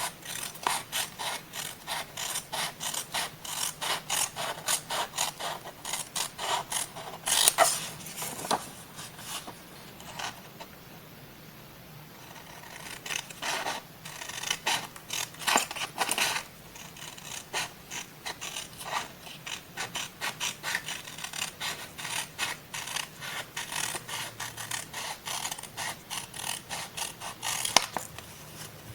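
Scissors cutting paper in quick repeated snips, several a second, with a pause of about two seconds near the middle.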